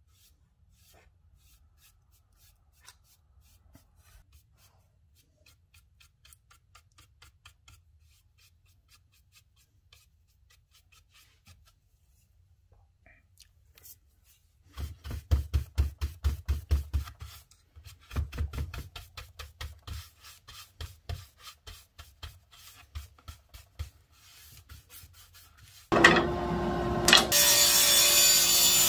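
Faint light ticks of a small paintbrush dabbing paint, then, about halfway through, loud, fast back-and-forth rubbing strokes in several runs as a painted wooden board is sanded back by hand. Near the end a table saw comes on suddenly and runs with a steady hum, with a sharp knock shortly after it starts.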